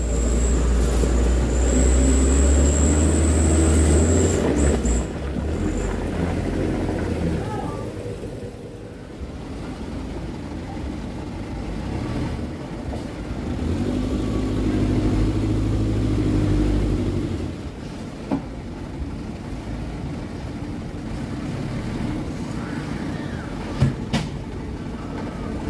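Diesel engines of loaded trucks revving hard under load while stuck in deep mud. The engine noise surges twice: over the first five seconds with a high whine, and again about halfway through. A sharp knock comes near the end.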